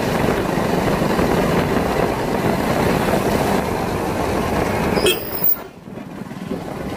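Steady rush of wind and engine noise from a motorcycle on the move. About five seconds in it breaks off sharply and drops to a quieter rush that slowly builds again.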